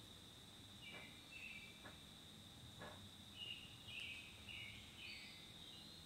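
Woodland songbird singing faintly in short, high, repeated phrases, two near the start and a quicker run of four in the second half, over a steady high-pitched hum.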